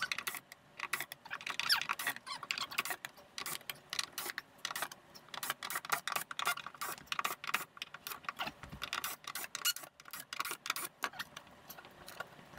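Cordless drill-driver taking screws out of a wooden shipping crate: a dense, irregular run of rapid clicks.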